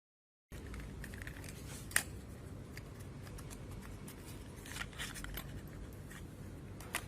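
Hand-handling noise: a few sharp clicks and light scrapes of small parts or tools being moved, over a low room hum. It starts about half a second in after dead silence, with the loudest click about two seconds in.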